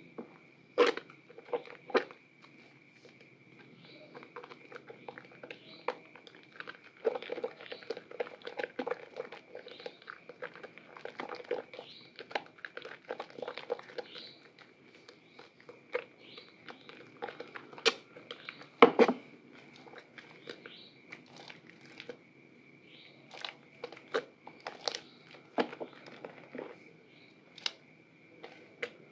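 Hands squeezing and kneading soaked soap in foamy soapy water: irregular wet squelches with crackling pops of lather. There is a denser stretch in the first half, and the loudest squelch comes about two-thirds of the way through.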